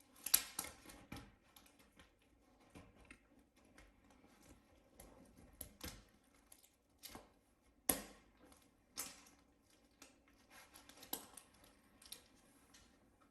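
Irregular clicks and taps of small plastic and metal laptop parts being handled and fitted during reassembly, the sharpest about a third of a second in and again near 8, 9 and 11 seconds.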